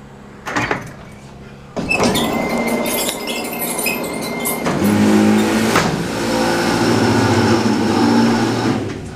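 Power-operated doors and car gate of a 2003 Otis hydraulic freight elevator opening. There is a clank about half a second in, then loud mechanical running from about two seconds, with a steady high tone for about three seconds, then a steady low motor hum.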